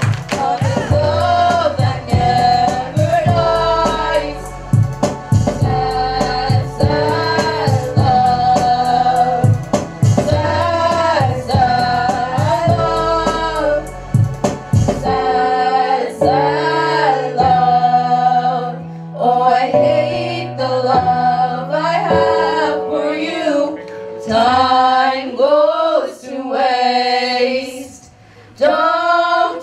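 A song with a woman's voice singing over accompaniment. For the first half there is a steady beat with drums and bass; about halfway through the beat drops out and the voice carries on over long held bass notes.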